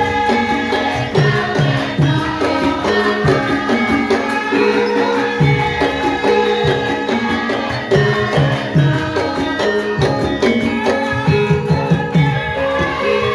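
Javanese gamelan music for a lengger dance. Sustained ringing metallophone and gong tones are played over a steady pattern of kendang drum strokes.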